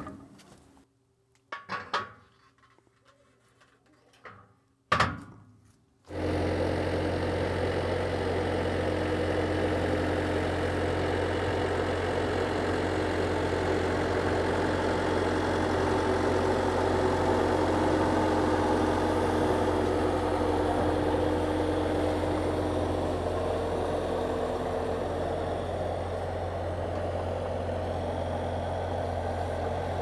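A few knocks as steel rails are set in place, then from about six seconds in a skid steer engine runs steadily at constant speed while the kiln cart of stacked slabs is pulled out on the rails.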